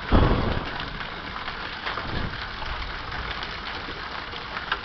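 Hailstorm: a steady hiss of large, golf-ball-sized hail and rain coming down, with many small scattered hailstone impacts. A short low thump comes right at the start.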